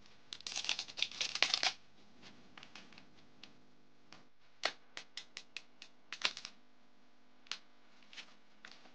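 Thin adhesive plastic film crackling and crinkling as it is peeled off a laptop palm rest with a spudger. A dense rustle in the first second and a half, then scattered short crackles and light clicks.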